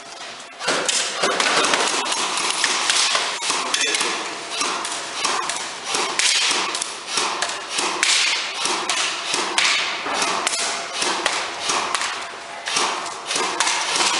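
Airsoft guns firing, sharp cracks coming several a second in quick succession, starting about half a second in.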